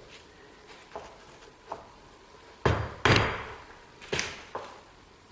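Hammer blows driving a tight-fitting part into a metal machine apron: two light taps, then four heavier dull blows in the second half, the loudest two in quick succession.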